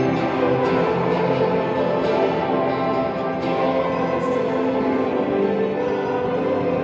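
Orchestral classical music, many instruments sounding together in held, layered tones.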